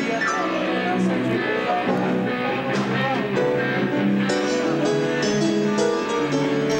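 Electronic keyboard being played: held chords in the lower notes with quicker runs of higher notes over them, in a plucked, guitar-like voice.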